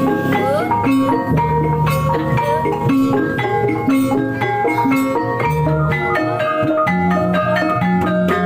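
Javanese gamelan music: bronze metallophones and gongs playing a quick run of struck, ringing notes over low sustained tones.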